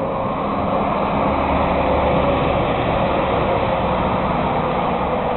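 Steady roar of Pennsylvania Turnpike traffic, with the low drone of heavy truck engines in it, heard from inside a house. It swells over the first couple of seconds and then holds.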